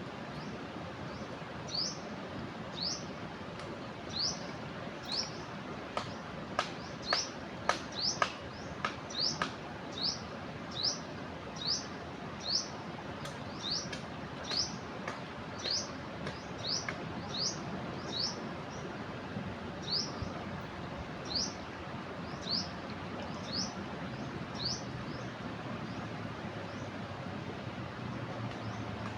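A bird repeats a short, high, rising chirp about once a second over the steady rush of a river in flood. A few sharp clicks come in a cluster about six to eight seconds in.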